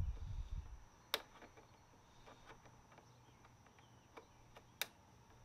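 Faint small clicks and ticks of hand-tool work on the plastic cover above a car's grille, with two sharper clicks, one about a second in and one near the end.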